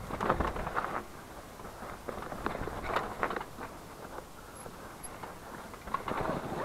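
Downhill mountain bike running fast down a rough dirt trail: tyres crunching over loose dirt and roots while the bike rattles in irregular bursts, loudest near the start and near the end.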